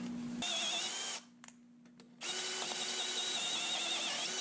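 Makita cordless drill drilling into steel stock held in a vise, to make bushings. It runs in two bursts, a short one from about half a second in and a longer one from about two seconds in, with a short pause between.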